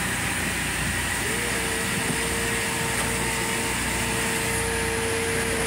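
Steady drone of running machinery, with a steady whine that sets in about a second in and holds.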